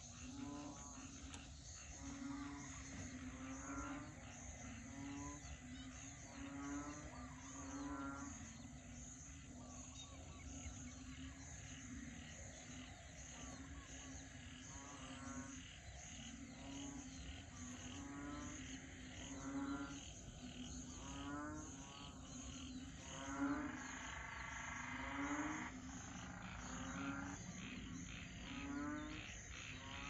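A chorus of frogs calling, with low croaks repeating about once a second and higher pulsed calls among them, over a steady high trill of insects.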